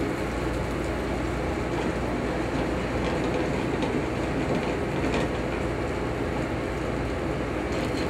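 Butter foaming and sizzling in a hot skillet on a restaurant range, over a steady low rumble of kitchen noise, with a few faint ticks.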